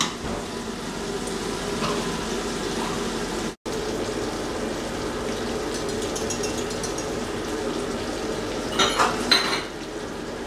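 Diced meat frying in a pan on the hob, a steady sizzle, with a quick run of metal utensil clinks against the cookware near the end. The sound cuts out for an instant about a third of the way in.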